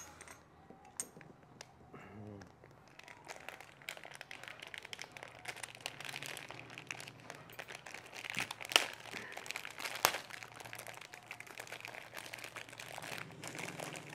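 Plastic wrapping of a new motorcycle battery kit being opened and handled, a dense, ongoing crinkling with two sharper snaps a little past the middle.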